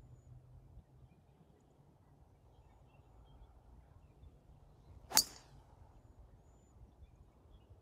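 Golf driver striking a teed ball: one sharp crack about five seconds in, with a brief ring after it, over a faint low background rumble.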